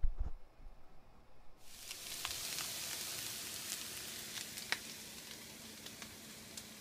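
A glass lid knocks onto a frying pan at the very start. Then, about one and a half seconds in, corned beef hash (canned corned beef with diced potato and onion) starts sizzling in hot oil in the open pan, with scattered pops, slowly dying down toward the end.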